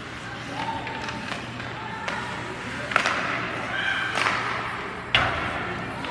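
Game sounds in a large echoing hall: two sharp knocks, about three and five seconds in, with distant voices and short held tones in the background.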